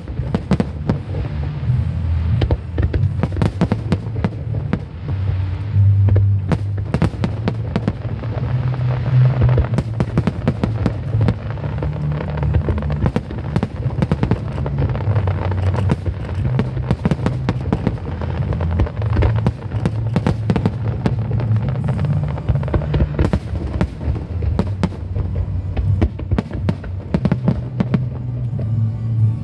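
Aerial fireworks bursting in dense, irregular succession, with many sharp bangs and crackles, over music with a heavy bass line.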